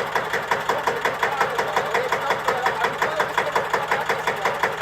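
Air-cooled single-cylinder diesel engine of a 1954 Deutz F1L612 tractor idling steadily after its overhaul, with an even beat of about six firings a second.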